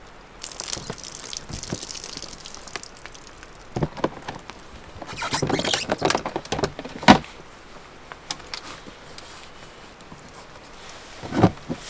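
Rustling and handling noises of camp gear being packed up, with scattered clicks, a sharp knock about seven seconds in (the loudest sound) and another thump near the end.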